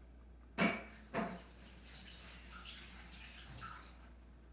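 Havanese dog with a nosebleed sneezing twice in quick succession, about half a second apart, followed by a soft hiss.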